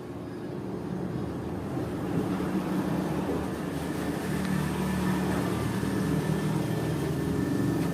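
A motor vehicle's engine running, a low hum with a few steady pitched lines that grows louder over the first two seconds and then holds.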